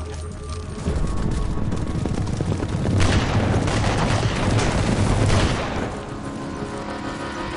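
Film gunfight: a rapid volley of gunshots from several guns, densest and loudest from about three seconds in, over the hoofbeats of galloping horses.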